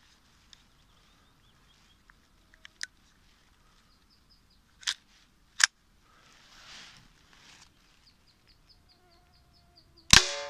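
Gamo PT-85 CO2 air pistol being handled, with faint clicks and then two sharp metallic clicks about halfway through. Near the end it fires once, a sharp crack followed by a ringing note that dies away, as the shot hits the large bottle target.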